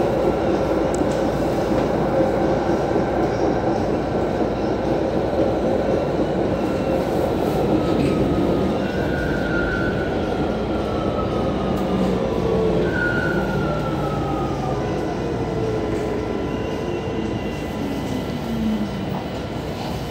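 Metro train running on an elevated line, heard from inside the car: a steady rumble of wheels and running gear. From about nine seconds in, pitched whines glide downward as the train slows into a station.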